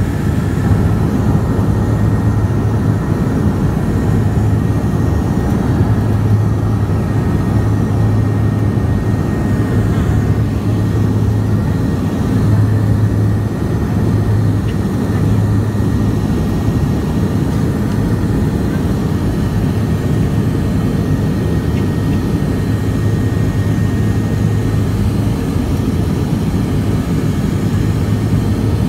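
Cabin drone of a BAe Jetstream 32's Garrett TPE331 turboprop engines in flight: a loud, steady low hum with a faint, steady high whine above it.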